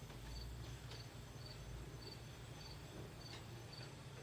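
A cricket chirping steadily, short high chirps repeating just under twice a second, over a low steady hum.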